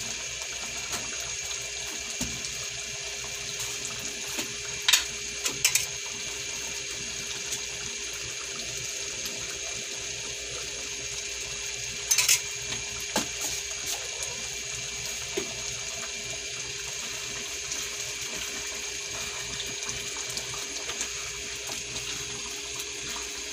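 A pan of thick tomato-based pork menudo sauce simmering on the stove: a steady hiss with a few sharp pops or knocks, about five and twelve seconds in.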